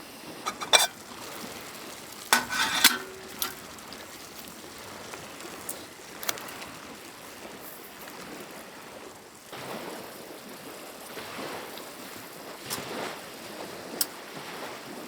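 Camp cooking sounds: scattered clinks and knocks of utensils against cookware over a soft, steady sizzling hiss.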